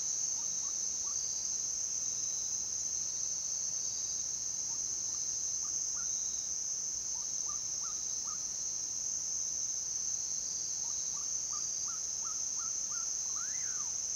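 Outdoor nature ambience: a steady high-pitched insect drone, with a bird giving short rising call notes in runs of three to six every few seconds and one longer rising-then-falling call near the end.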